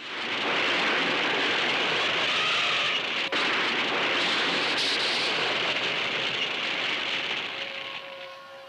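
A steady rushing hiss like heavy rain, broken for an instant about three seconds in and fading near the end.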